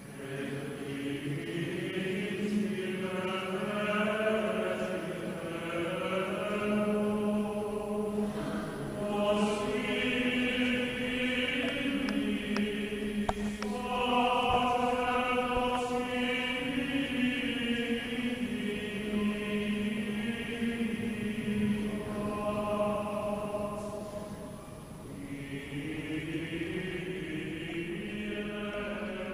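Choral chant: voices singing slow, long held notes that step from pitch to pitch, with brief pauses between phrases.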